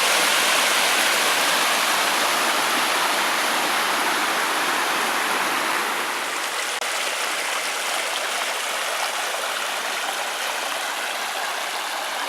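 Steady rush of flowing, falling water, dropping slightly in level about six seconds in.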